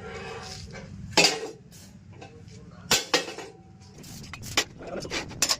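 Steel pieces clanking and knocking against each other in metal fabrication, four or five sharp strikes at uneven intervals.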